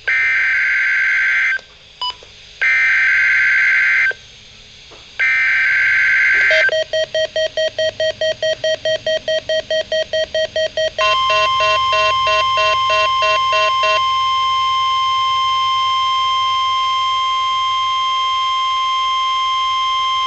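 NOAA Weather Radio test alert: three short bursts of screeching SAME digital header data, then a rapid beeping of about four beeps a second. A steady single-pitch warning alarm tone comes in partway through, overlaps the beeping for a few seconds and then sounds alone.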